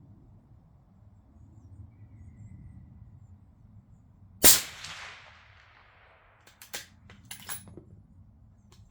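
A single rifle shot, sharp and loud, ringing out and fading over a second or so. A few quick, sharp mechanical clicks follow about two seconds later.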